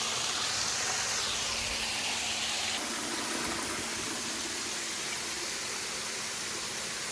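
Waterfall rushing steadily, a constant even rush of falling water.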